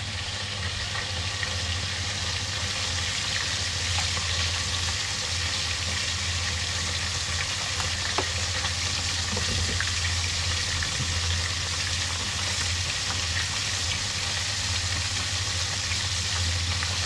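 Small whole fish sizzling as they shallow-fry in oil in a wok, with a pot of soup boiling alongside; a steady low hum runs underneath.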